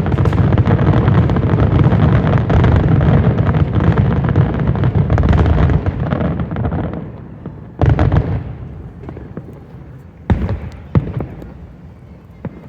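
Fireworks finale: a dense, continuous barrage of shell bursts that thins out about seven seconds in. One loud boom follows near eight seconds, then a few last scattered bangs.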